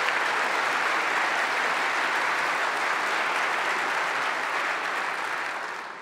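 Audience applauding, a dense steady clapping that dies away near the end.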